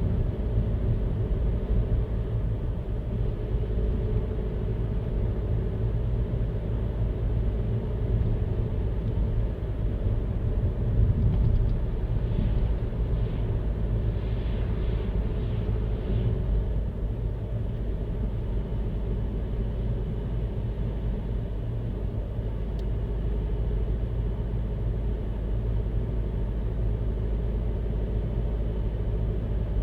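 Steady low rumble of a car driving at a constant speed: road and engine noise.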